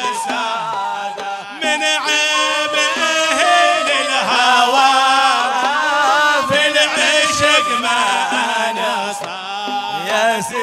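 Men's voices chanting a Hadrami religious qasida (inshad), singing long, winding melodic lines that carry on without a break.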